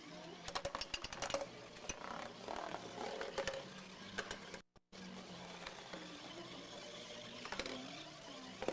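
Plastic balls rattling down a spiral ball-drop tower toy: a quick run of light clicks and clatter, then scattered clicks. The sound cuts out for a moment midway.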